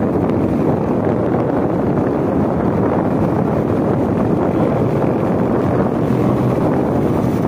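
Steady wind rush on the microphone over the running engine of a Suzuki Smash 115 motorcycle ridden at an even speed.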